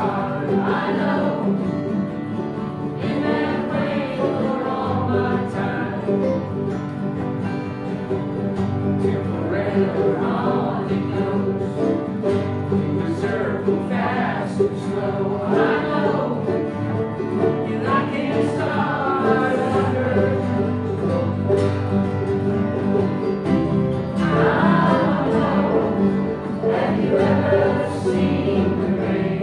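A group of people singing a song together, accompanied by several strummed acoustic guitars.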